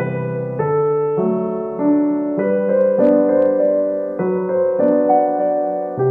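Background music: soft keyboard chords held and changing every half second to a second.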